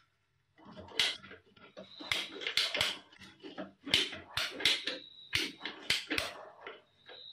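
Hand tools working on a plastic water-pipe stub at a tiled wall: irregular sharp clicks and knocks, several a second, with a faint high whine that comes and goes.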